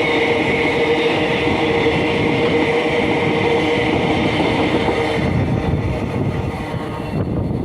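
Freight train wagons rolling past, a dense rumble with clickety-clack and a steady high ringing tone from the wheels that fades away about five seconds in.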